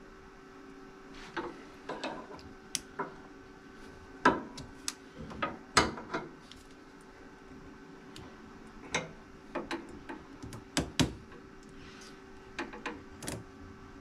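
Irregular clicks and light knocks of hands working a rubber fuel line and its hose clamps while fitting a new inline fuel filter on a small riding-mower engine, over a faint steady hum.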